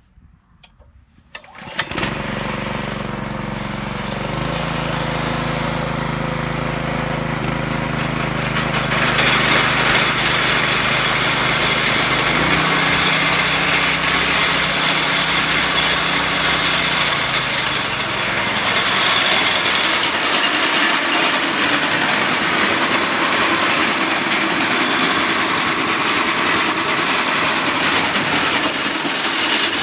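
Predator 212cc single-cylinder four-stroke engine on a portable auger, pull-started and catching after about two seconds, then running steadily. Its pitch shifts a few times, and from about nine seconds in it runs louder and rougher.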